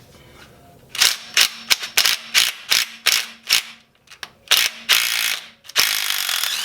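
Ratchet wrench with a 14 mm socket backing out the transfer case's rear extension housing bolts: about nine quick ratcheting strokes at roughly three a second, then two longer continuous runs of ratcheting near the end. The bolts come off easily.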